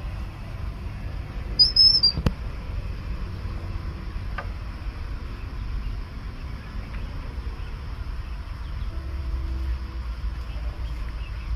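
A short, wavering high-pitched squeak about two seconds in, followed by a sharp click, over a steady low rumble.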